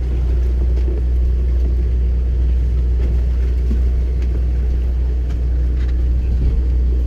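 A boat's motor running with a steady, unchanging low hum.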